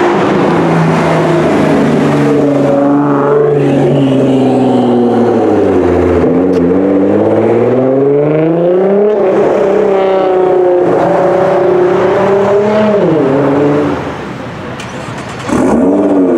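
Tuned Nissan GT-R R35 with a loud aftermarket exhaust, its twin-turbo V6 revving and being driven. The engine pitch falls slowly, climbs again, then dips quickly a few times. It goes quieter for a moment near the end and then comes back loud.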